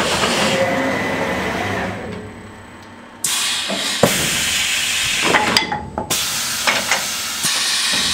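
GH-Tec Challenge 2000 automatic CNC wood copying lathe cutting a wooden spindle, a steady hiss-like cutting noise. It fades out about two seconds in and cuts back in sharply a second later. Several sharp knocks follow in the second half.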